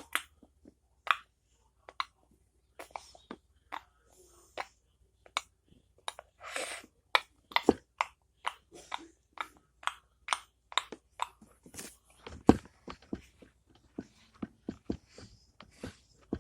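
Close-up series of sharp clicks and taps, irregular, about two or three a second, with a brief rustle partway through.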